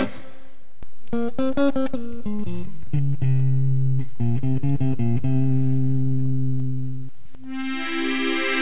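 Background music: the instrumental break of a French chanson, plucked guitar notes over a bass line, with a fuller sustained instrument coming in near the end.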